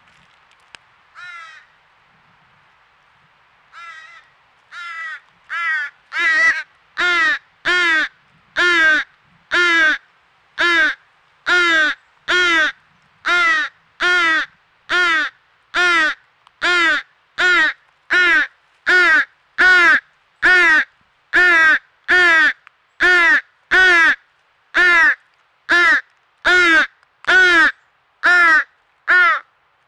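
American crow fledgling begging: a few quiet calls at first, then from about six seconds a loud, relentless series of nasal caws, a little more than one a second, each call falling in pitch.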